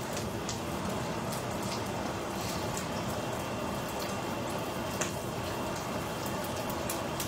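Dried snakeskin gourami pieces shallow-frying in hot oil in a pan: a steady sizzle with scattered small pops and crackles, and one sharper tick about five seconds in.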